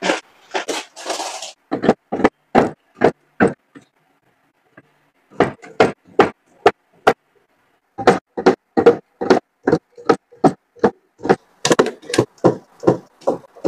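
A snack bag crinkling as it is pushed onto a metal pull-out shelf, then plastic drink bottles set down one after another on metal shelves, each landing with a short knock. The knocks come two or three a second, with a brief pause partway through.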